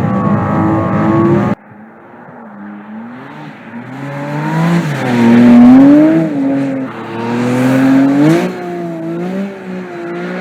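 Porsche 718 Cayman GT4 RS's naturally aspirated flat-six engine at high revs. About a second and a half in, the sound cuts from a loud, close take to a quieter one, where the engine note rises and falls in pitch several times, swelling loudest about halfway through and again near the end.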